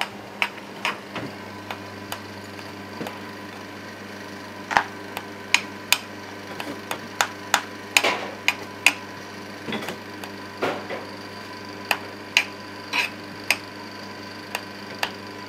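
Electric grinder milling cooked lotus seeds into paste, its motor running with a steady hum. Irregular sharp clicks and knocks, about two a second, come from the metal hopper as the seeds are worked down into it.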